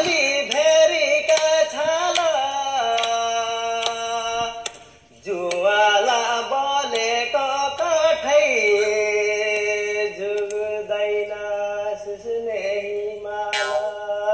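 A man singing, with long held notes and a sliding pitch. He breaks off briefly about five seconds in.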